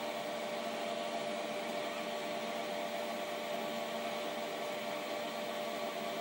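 Steady whirring hum of the Denford Orac CNC lathe's electric motor running, with several constant tones in it.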